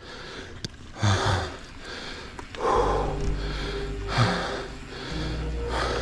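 A mountain biker's breathing while pedalling, a breathy exhale roughly every second and a half, over a low rumble of riding noise on the microphone.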